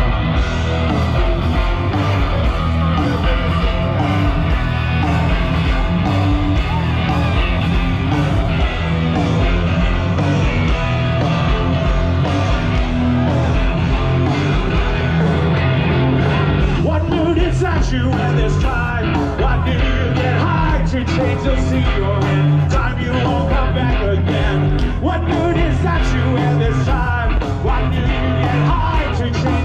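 Live rock band playing loudly through a large outdoor PA, with a singer, heard from inside the crowd in front of the stage.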